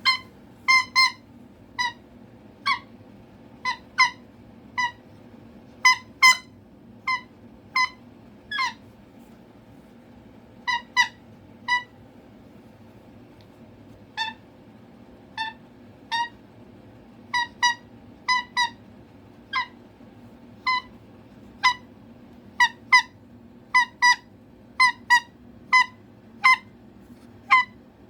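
Cockatoo giving short, sharp, high-pitched calls over and over, often in quick pairs, at roughly one to two a second: attention-seeking calling.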